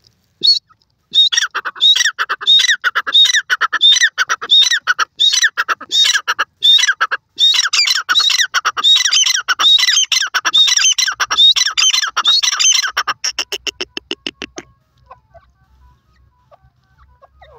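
Grey francolin calling loudly: a long, rapid series of repeated harsh, ringing notes. Near the end it breaks into a fast ticking run that fades and stops.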